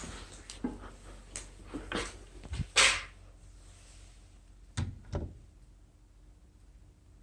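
A few scattered knocks and clicks with no alarm sounding, the loudest about three seconds in and two more shortly before the five-second mark.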